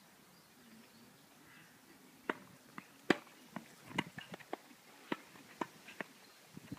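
Tennis rally: sharp pops of rackets striking the ball and the ball bouncing on the court, starting about two seconds in and coming roughly every half second, the loudest about three seconds in.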